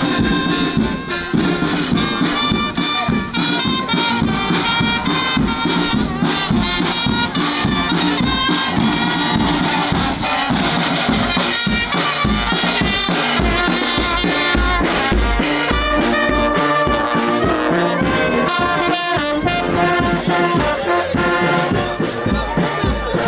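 Marching band playing: trumpets and larger brass over snare and bass drums keeping a steady beat.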